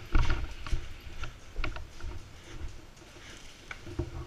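Footsteps scuffing over a debris-littered concrete floor, with irregular knocks and rattles from carried gear and a replica machine gun, and a louder bump just at the start.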